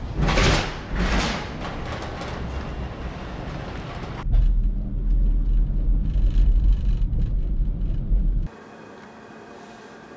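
Two short loud noises at the start. From about four seconds in comes a loud, deep rumble from a Yamaha MT-09 motorcycle riding through an underground car park, which cuts off suddenly near the end to a quiet hiss.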